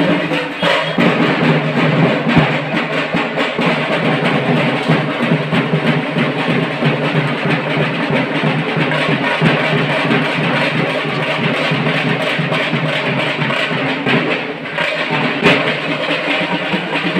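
Loud music with a heavy, steady drumbeat, briefly dipping about three quarters of the way through.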